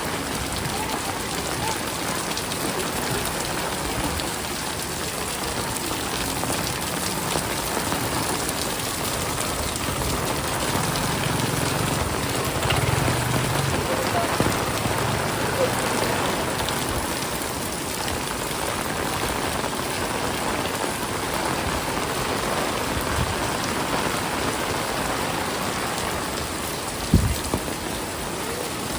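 Heavy rain falling steadily and hard on surfaces. A low rumble runs for a few seconds midway, and a single sharp thump comes near the end.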